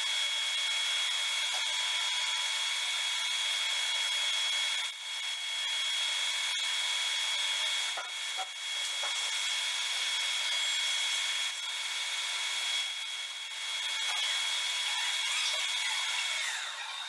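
Metal lathe running with a boring tool cutting inside the bore of a turned part held on a fixture. It gives a steady high-pitched whine over a hiss of cutting, with a few brief dips, and the whine falls in pitch near the end.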